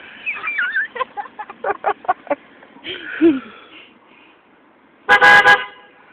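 Car horn sounding one short beep of about half a second, about five seconds in; it is the loudest sound. Before it come short rhythmic bursts of laughter and voices.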